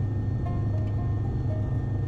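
Bell 407 helicopter cabin noise: the single-turbine engine and rotors give a steady low drone with a thin high whine. About half a second in, a quick run of about five short electronic tones at stepping pitches sounds over it.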